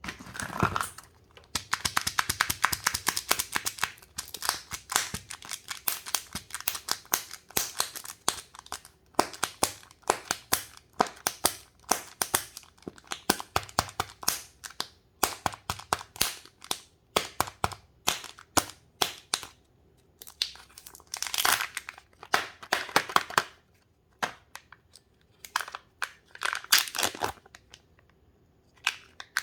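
Kinder chocolate egg wrappers being torn open and crinkled, a long run of sharp crackles and rustles with short pauses between eggs.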